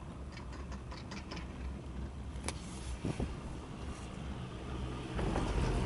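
Wind rumbling on the microphone during a chairlift ride, with a few light clicks and a tick, and a louder gust near the end.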